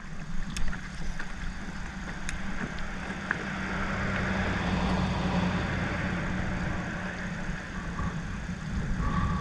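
Small boat motor running with a steady hum, with a few faint clicks in the first few seconds.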